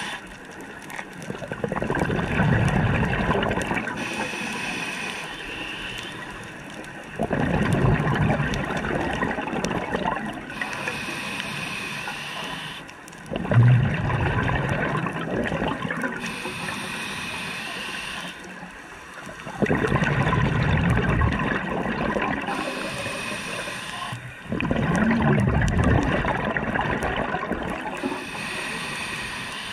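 Scuba diver breathing through a regulator underwater: a thin hiss on each inhale, then a loud gurgling rush of exhaust bubbles on each exhale, repeating about every six seconds for five breaths.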